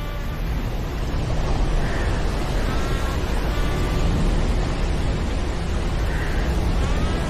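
Storm sound effect: a steady, heavy noise like wind and surf with a deep low rumble, and a few faint pitched calls over it.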